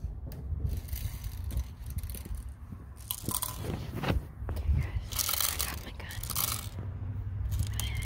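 Handling noise from a camera being picked up and set down on a car: bursts of rubbing and scraping on the microphone, a few seconds in and again near the end, over a steady low rumble.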